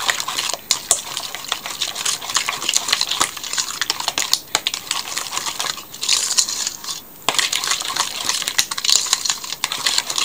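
A metal spoon stirring wet batter in a stainless steel bowl, scraping and clinking against the bowl in quick irregular strokes, with a few short pauses.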